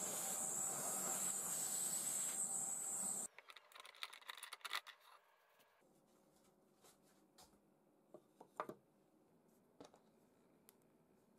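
Benchtop drill press running with a 30 mm Forstner bit, a steady motor noise with a high whine, which cuts off suddenly about three seconds in. After that there are only a few light clicks and taps from small items being handled.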